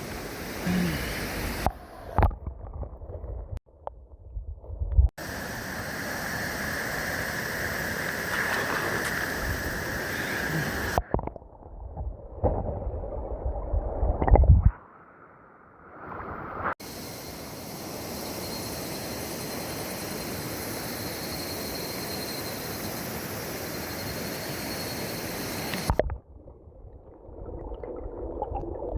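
Itadori River water flowing, a steady rushing noise heard in a series of short clips joined by abrupt cuts.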